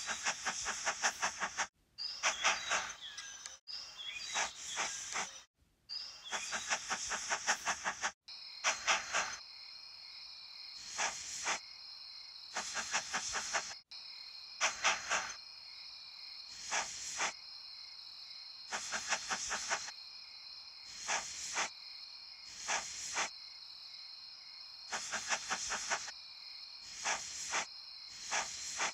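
Crickets chirping: a steady high trill with short chirps repeating about once a second. During the first few seconds the chirping is denser and is cut off abruptly several times.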